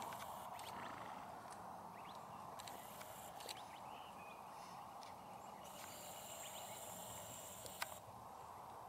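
Faint outdoor ambience: a steady, even rushing noise, with a few short high chirps and two sharp clicks, one about three and a half seconds in and one near the end.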